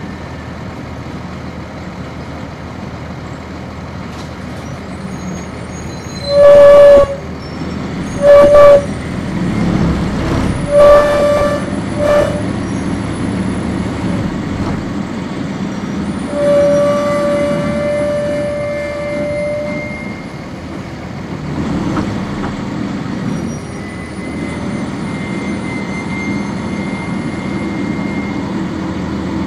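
Inside a 1999 NovaBus RTS city bus, the Cummins ISC diesel engine and road noise run steadily. A horn sounds four loud short toots between about six and twelve seconds in, then one longer, quieter note of about three seconds.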